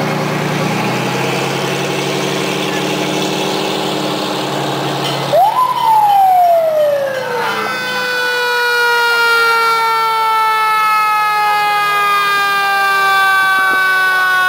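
A fire truck's engine runs as it passes. About five seconds in, its siren sweeps quickly up and drops back, then holds a long tone that slowly sinks in pitch.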